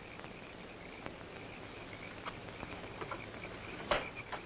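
Swamp insects chirring steadily. A few faint clicks are scattered through, with a sharper click near the end.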